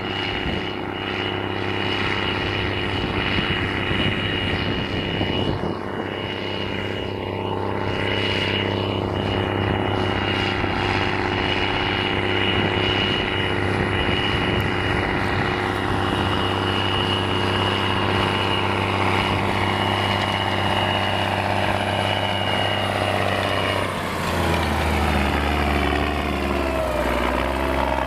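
Belarus MTZ 3022 tractor's diesel engine running steadily under load while pulling a disc harrow, with a steady high whine over the engine note. About 24 seconds in it gives way to a tractor close by with a lower engine note and a whine that dips in pitch and rises again as it goes past.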